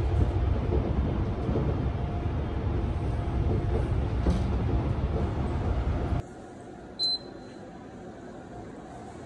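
A commuter train running, heard from inside the carriage as a steady rumble that cuts off suddenly about six seconds in. About a second later a transit-card reader at a fare gate gives one short, high beep.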